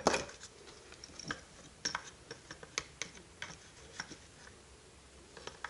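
Scattered light clicks and taps of a plastic power-tool battery pack and loose parts being handled and fitted together on a workbench, with a sharper click at the start.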